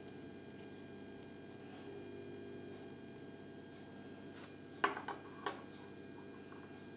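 Small plastic Kinder Surprise toy figure being handled and set down: three sharp plastic clicks close together about five seconds in, over a steady low hum.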